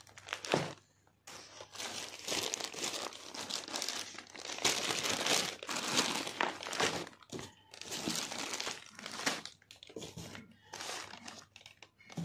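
Plastic courier mailer bags crinkling and rustling as they are handled and set down, in irregular bursts with short pauses between them.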